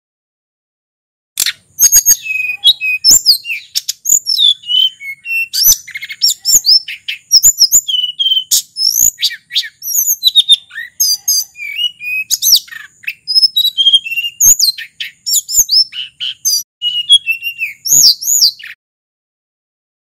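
A sulingan gunung (Cyornis blue flycatcher) singing a long, fast, varied song of whistled notes that slide up and down, mixed with sharp clicking notes; it starts about a second in and stops shortly before the end.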